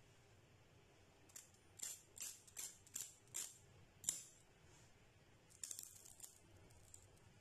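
Crisp crust of a deep-fried semolina (rawa) pakora crackling as it is torn apart by hand: a string of sharp crunches about every half second, the loudest a little after four seconds in, then a quick cluster of crackles near six seconds.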